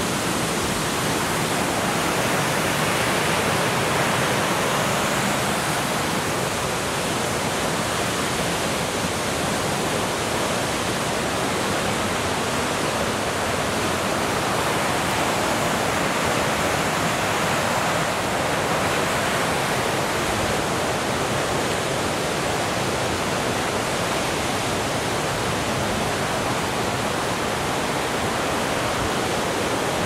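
Steady, unbroken rush of water falling over Little Manitou Falls, a 30-foot waterfall on the Black River.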